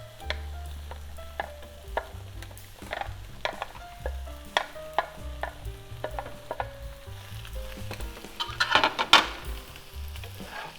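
Diced onions and bell peppers sizzling in butter in a frying pan, stirred with a spatula that clicks and scrapes against the pan; one louder scrape about nine seconds in. Soft background music underneath.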